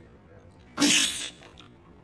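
A person sneezing once, a sudden sharp burst about a second in that dies away within half a second.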